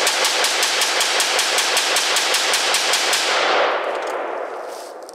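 Ruger AR-556 semi-automatic rifle in 5.56 mm firing a rapid string of shots, about five a second, which stops about three seconds in; the ringing of the last shots dies away over the next two seconds.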